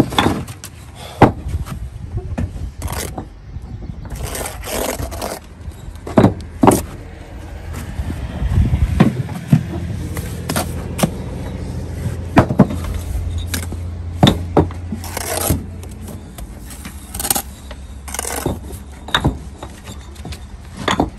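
Steel brick trowel scraping and spreading sand-and-cement mortar along the top of a brick wall, with repeated sharp taps and knocks of the trowel against brick as bricks are laid. A steady low rumble sits underneath in the middle.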